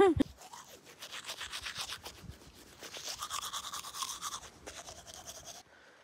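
Toothbrush scrubbing teeth in quick back-and-forth strokes, stopping shortly before the end.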